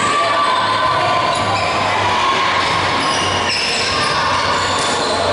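Echoing sports-hall ambience between volleyball rallies: scattered players' voices and movement on the court, under a steady low hum.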